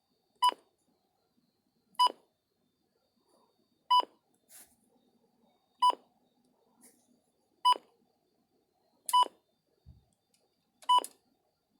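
Midland WR-100 weather radio giving its short key-press beep each time a button is pressed, seven identical beeps about every two seconds.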